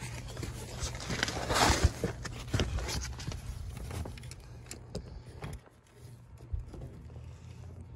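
Small screwdrivers clicking and scraping against the metal cap of a Range Rover Sport's active ride suspension filter housing as it is pried loose, over a steady low hum, with a brief rush of noise about one and a half to two seconds in.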